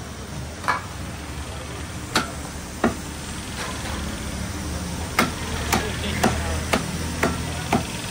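A knife or cleaver chopping on a cutting board: a few scattered knocks, then a steady run of about two chops a second in the second half, over a low background hum.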